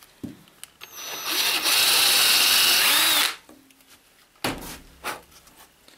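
Ryobi cordless drill spinning up and boring a hole through a small piece of wood for about two seconds, then stopping. A few short knocks follow.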